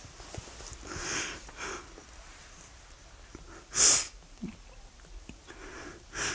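A man crying: sniffling, sobbing breaths through the nose, four in all, the loudest a sharp sniff about four seconds in.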